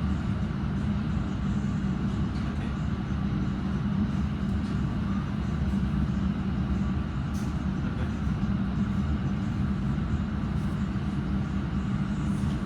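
London Underground Metropolitan Line train running, a steady low rumble heard from inside the carriage.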